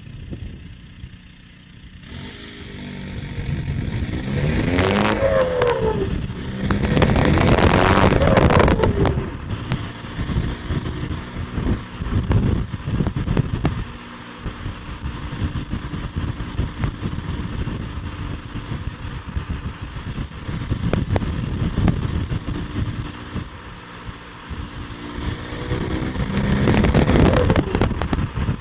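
Tuned 2.0 TDI common-rail diesel engine with a Garrett GTB2260VK turbo, revved hard several times with rising pitch and choppy stutters in between, typical of a hard-cut rev limiter and turbo flutter (compressor surge).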